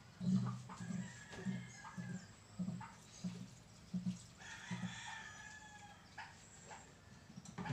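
A rooster crows: one long call about halfway through. Beneath it runs a low pulsing sound that repeats roughly every two-thirds of a second.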